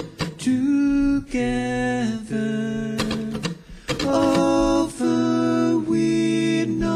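Live acoustic string-band music with singing: held notes in harmony that move in steps, with short breaks between phrases.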